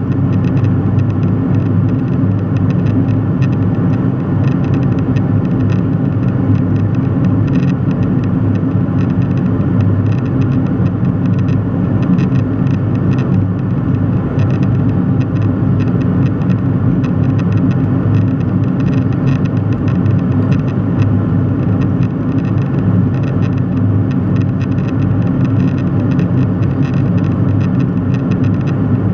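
Steady cabin noise of a jet airliner in cruise: a constant low drone of engines and airflow past the fuselage, unchanging throughout.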